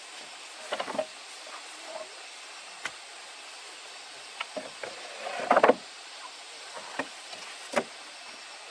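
Scattered knocks and clicks over a steady background hiss, with a louder clatter about five and a half seconds in.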